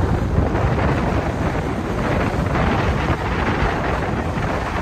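Wind blowing on the microphone over the rush of water along the hull of a Beneteau 473 sailboat under sail.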